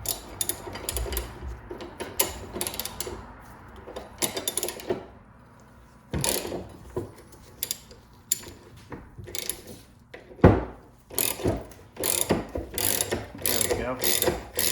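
Hand tools working on a driveshaft's double cardan U-joint during disassembly: a string of short mechanical strokes, pausing about five seconds in, then one heavy knock about ten and a half seconds in, followed by quicker strokes of about two a second.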